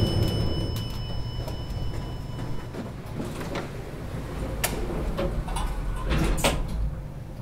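Inside an elevator car: a low steady rumble, with a bell-like chime dying away over the first few seconds. Several short clicks and cloth rustles follow between about three and six and a half seconds in.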